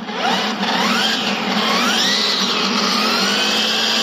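Ego BC3800E cordless brushcutter's brushless motor running on a replacement sensorless BLDC controller, spinning up with a whine that rises in pitch, wavers, then settles to a steady speed.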